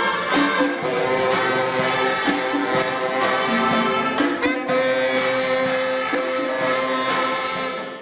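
Jazz band of saxophones and brass playing a tune together, holding long notes in chords.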